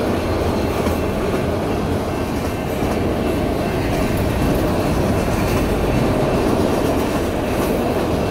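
CSX freight train of enclosed autorack cars rolling past, a steady noise of steel wheels running on the rails.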